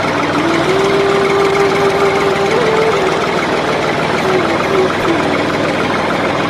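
Tractor engine idling steadily with a knocking rhythm; its drone steps up in pitch about a second in and sinks back in the last couple of seconds.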